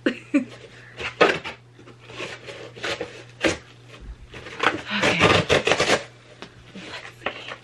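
Cardboard mailer being opened and handled: irregular scraping and rustling with a few sharp clicks, and a longer, denser stretch of rustling about five seconds in.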